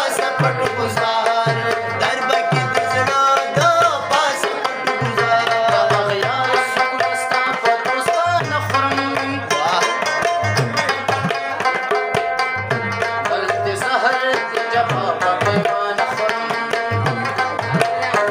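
Tabla and Afghan rubab playing together: the tabla keeps a steady rhythm with recurring deep bass strokes from the larger drum, while the rubab is strummed and plucked over it.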